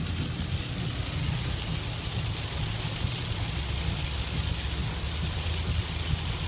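Heavy rain falling on a moving car, heard from inside the cabin, over the steady low rumble of the car on the road.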